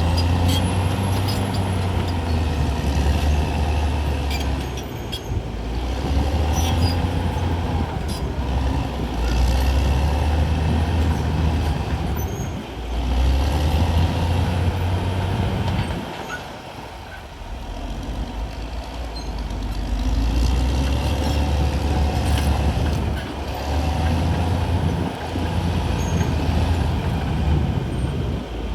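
CAT D6R XL bulldozer's diesel engine running hard under load, its deep rumble swelling and easing, with a longer lull about two-thirds of the way through. A few sharp knocks come through now and then.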